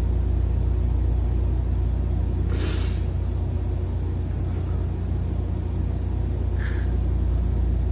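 Two short, breathy sniffs from a tearful man, about two and a half seconds in and again near the end, over a steady low hum.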